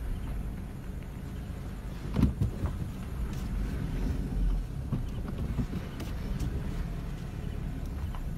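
Ford Ranger pickup driving slowly on an unpaved laterite road, heard from inside the cab: a steady low rumble of engine and tyres, with a short cluster of knocks and rattles about two seconds in and a few fainter ones later.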